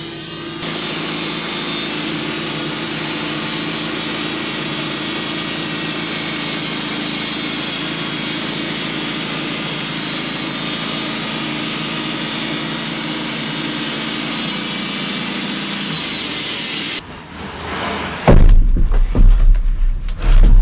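Sawmill cutting a board off a spruce log: a steady run of engine and blade noise that stops suddenly near the end. Then loud, heavy thumps and knocks follow.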